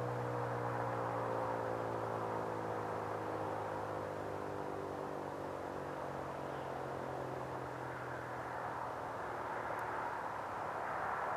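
Federal Signal 2001-130 rotating tornado siren winding down after its alert signal: its stacked tone slowly falls in pitch and fades out over about eight seconds, over a steady rushing noise.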